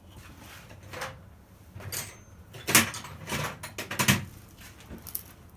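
A KLR650's Keihin CVK carburettor being handled and pushed back toward its rubber airbox boot: several separate knocks and clunks, the loudest near the middle, with rubbing between them.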